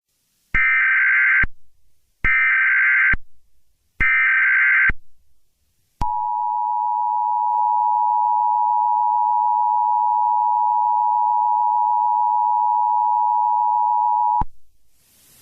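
Emergency Alert System tones: three short warbling SAME header data bursts about a second apart, then the two-tone EAS attention signal held steady for about eight seconds. A hiss of static rises near the end.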